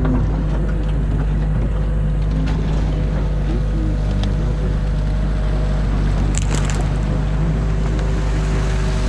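New Holland excavator's diesel engine running steadily, heard from inside the cab as a constant low hum, while the hydraulics work the arm and bucket. A few brief clicks sound about six seconds in.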